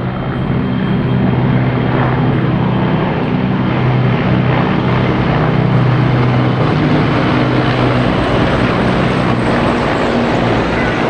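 A formation of military helicopters flying low overhead, their rotors and turbine engines making a loud, steady low drone. The sound builds to its loudest about halfway through, then slowly eases as they pass.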